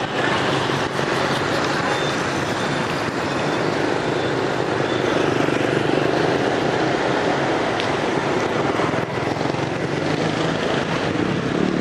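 Street traffic noise from motor scooters and motorbikes running past, a steady, even hum with no single event standing out.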